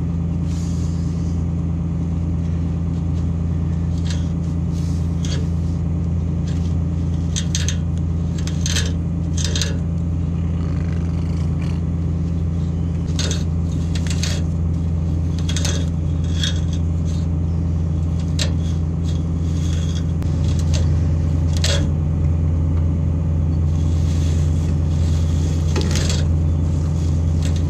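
Tractor engine idling steadily, with scattered short scrapes and rustles as tangled green plastic baler wrap is pulled out by hand from under a round baler jammed after a failed tie.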